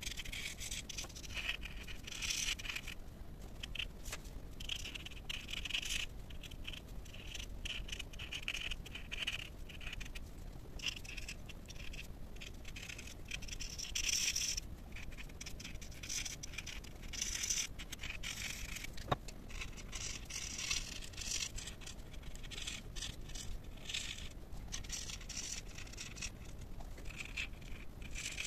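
Marker nib scratching across paper in short, irregular bursts of strokes as a drawing is coloured in, with one brief click about two-thirds of the way through.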